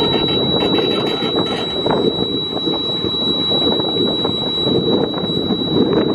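Tractor engine running with wind buffeting the microphone, a steady high-pitched whine over it, and scattered light clinks from the folded Kelly diamond harrow's disc chains.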